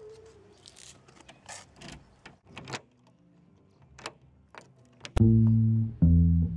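Faint clicks and rattles of a key being worked in a door lock and the door being opened. About five seconds in, loud music starts with a bass guitar line and guitar.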